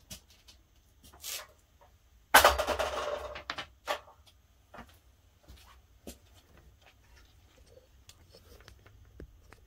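Handling noises: scattered clicks and knocks, with one loud scraping clatter lasting about a second, about two and a half seconds in.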